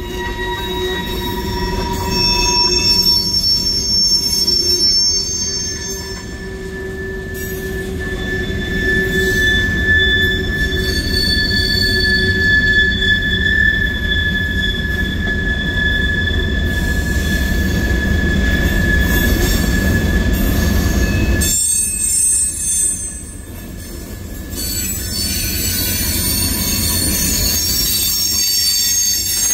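Freight train of tank cars and covered hoppers rolling past, its steel wheels squealing in several long, high tones that drift slowly in pitch over a low rumble. The rumble drops away briefly about three quarters of the way through.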